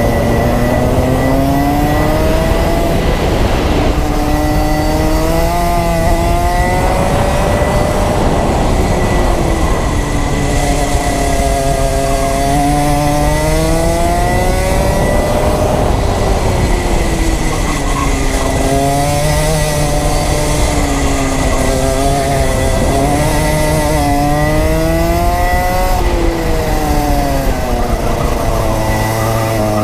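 Rotax Max 125 cc two-stroke kart engine, heard close up on board, revving up and falling back in pitch every few seconds as the kart accelerates out of corners and lifts off for the next.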